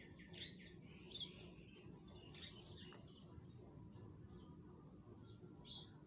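Pet parakeet giving a handful of short, faint, high chirps and squeaks while being held and stroked.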